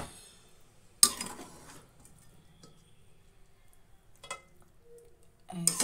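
A metal spoon knocking and scraping against a metal pot while chicken is spooned onto rice: a sharp ringing clink about a second in, a smaller knock a little after four seconds, and a short clatter near the end.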